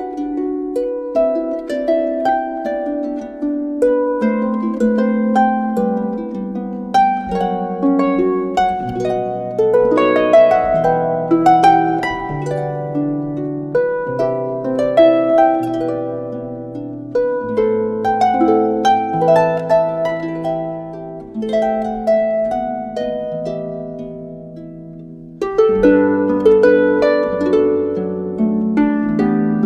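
Instrumental music of plucked, harp-like strings over a low bass line. The playing dies away about 24 seconds in, and a new passage starts abruptly about a second later.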